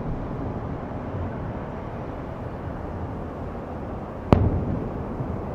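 Aerial firework shell bursting once about four seconds in: a single sharp boom that dies away in a rolling echo. The tail of an earlier boom is still fading at the start, over steady background noise.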